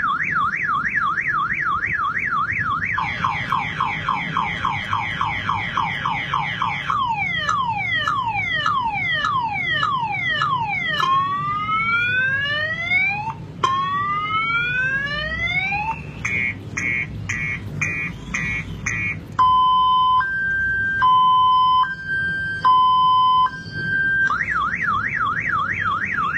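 Car-alarm siren sequence cycling through its tones: a fast up-and-down warble, a faster warble, a run of falling chirps, long rising sweeps, quick repeated beeps, then a high-low two-tone alternation, with the warble starting again near the end.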